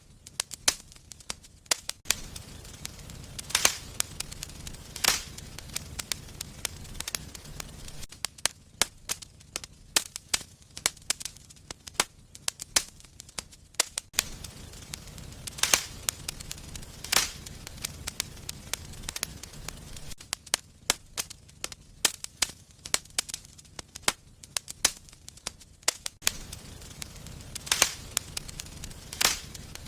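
Wood fire burning in a fireplace: frequent irregular sharp crackles and pops over a steady low rumble of the flames.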